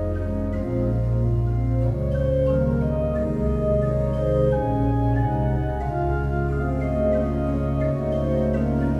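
Organ music: sustained chords over a low bass line that changes note every second or two.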